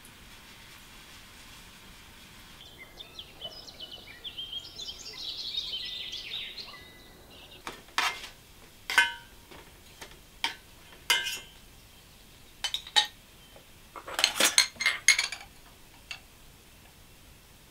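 Dough frying in hot oil in a metal pan, a crackling sizzle that builds for a few seconds, then a run of sharp metal clinks of a utensil and dishes, with a quick cluster of clinks near the end.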